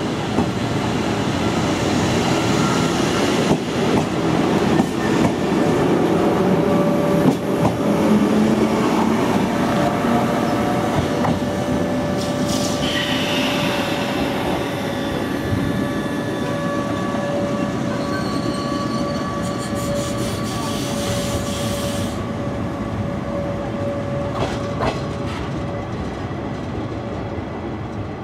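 A JR West 105 series electric train pulls out and runs away along the track. Wheel and motor running noise, with a steady hum, is loudest as the train passes close in the first several seconds, then slowly fades as it recedes. A high wheel squeal sets in about 13 seconds in and lasts several seconds.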